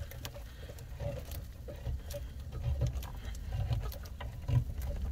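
The can opener blade of a Swiss Army knife pushed around the rim of a tin can, cutting the lid with a patter of small irregular metal clicks, over a low background rumble.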